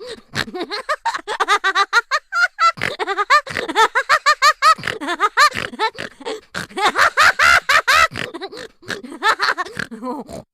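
A cartoon laughter sound effect: a long run of rapid, bouncing laughing bursts.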